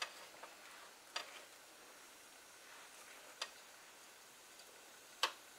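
Faint hiss of a cassava sada roti toasting and swelling on a wire rack over a red-hot electric stove coil, with a few sharp, spread-out ticks, the loudest near the end.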